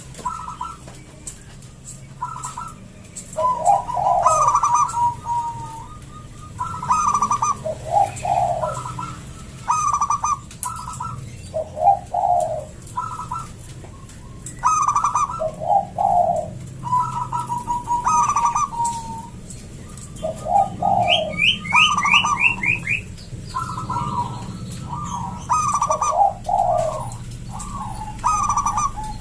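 Zebra dove (perkutut) singing its cooing song with a thick, big voice, the phrase repeated about every two to three seconds. Faint high chirps from a smaller bird sound over it, with a quick run of them about three-quarters of the way through.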